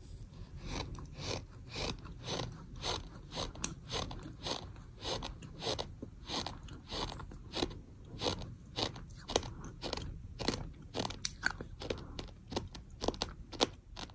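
A person chewing a mouthful of chunky sand close to the microphone, each bite a gritty crunch, about two crunches a second in a steady rhythm.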